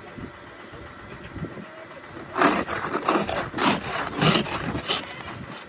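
Snow being scraped and cleared with a snow-clearing tool: a low steady background for about two seconds, then a run of rough scraping strokes, about two a second.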